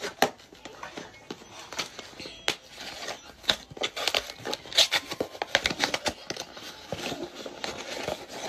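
Taped yellow packaging being peeled and torn open by hand: a run of irregular crinkles and crackles, thickest in the middle.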